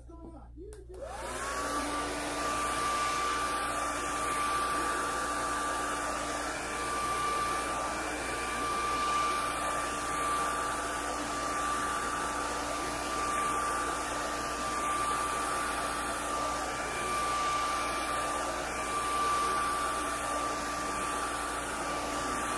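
Handheld hair dryer switched on about a second in, its motor whine rising quickly to a steady high tone over the rush of air, then running steadily while blowing hair dry.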